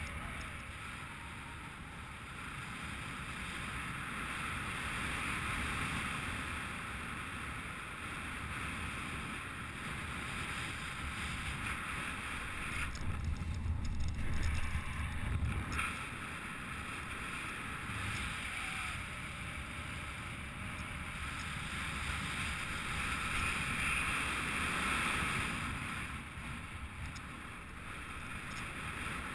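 Air rushing over a GoPro carried in paraglider flight: a steady wind hiss with a low rumble, swelling into louder buffeting about halfway through.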